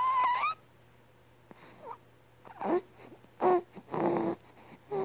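A sleeping newborn baby making sleep noises: a high squeak at the start, then a series of short grunts and whimpers with quiet gaps between them.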